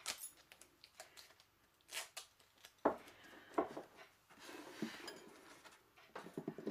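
Hands handling strips of black tape on a plastic cooler lid: scattered light taps and clicks with a short rustle, the sharpest click a little under three seconds in and a quick run of small clicks near the end.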